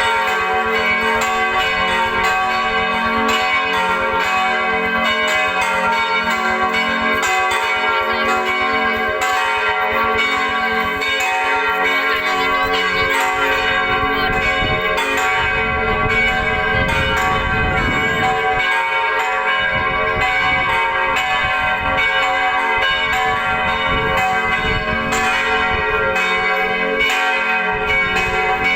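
Church bells ringing, struck over and over so that their ringing tones overlap into a continuous, even peal.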